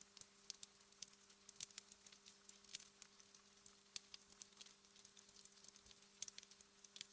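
Wood fire in a fireplace crackling softly: irregular small pops and snaps, several a second, over a faint hiss and a faint steady low hum.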